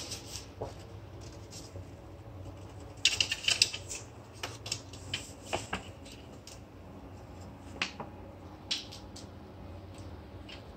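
Cat's claws clicking and scratching on a wooden shelf as it paws at it from its back, with a quick cluster of sharp clicks about three seconds in and single clicks after that.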